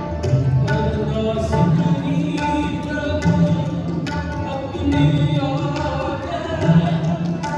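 Devotional singing with tabla accompaniment, continuous and steady in level, with held notes and regular drum strokes.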